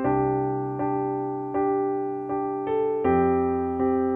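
Background music: piano chords struck at an even pace, about one every three-quarters of a second, each ringing and fading before the next.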